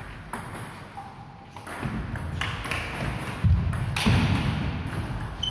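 Table tennis rally: the ball clicks sharply off the bats and table in a quick series of pings. A little past the middle come a couple of heavier thuds as a player lunges across the wooden hall floor.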